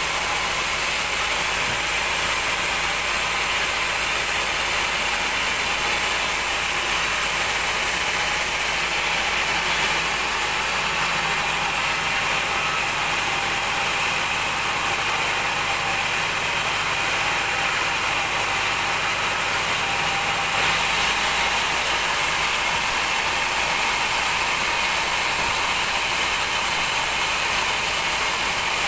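A 36-inch band sawmill's blade cutting lengthwise through a large mahogany log, with the machine running. The sound is a steady, loud, mostly high-pitched sawing noise that carries on without a break.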